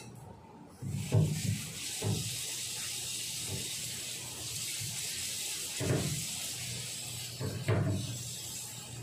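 Risotto simmering in a covered stainless pan with a glass lid on a gas burner: a steady hiss with a few irregular low bubbling pops.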